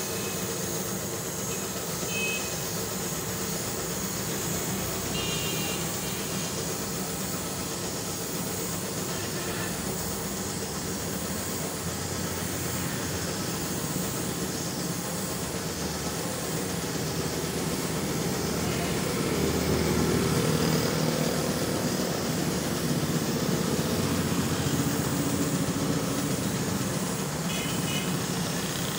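Compressed-air paint spray gun hissing steadily as it sprays paint, over a steady low machine hum.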